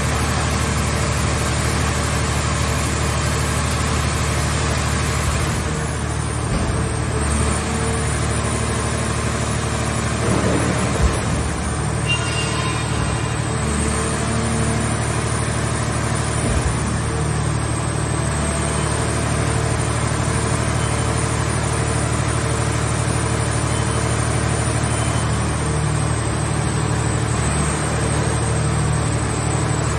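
Hydraulic power unit of a mobile scrap car baler running steadily under load as its cylinders raise the press lid, with a low hum that shifts slightly a few times and one knock about eleven seconds in.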